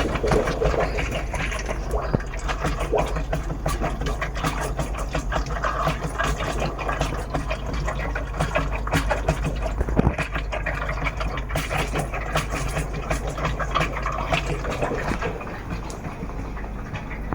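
Fluval FX6 canister filter running: a steady low motor hum with water rushing through it and rapid, irregular knocking and rattling. The knocking and pulsing are the sign of a worn impeller.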